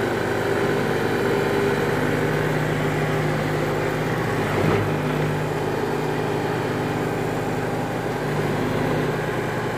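Sears Craftsman variable-speed bench grinder with a permanent-magnet motor and 6-inch wheels, running steadily at its top speed setting with an even motor hum. There is a brief knock about halfway through.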